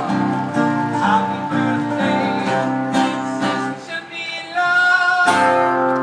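Background music led by acoustic guitar, with steady plucked and strummed chords.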